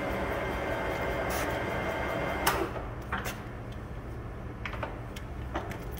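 Takisawa TSL-1000 D gear-head engine lathe running with a steady whir. About two and a half seconds in, a sharp click as the spindle is switched off, and the higher whine drops away, leaving a low hum with a few lighter clicks and knocks.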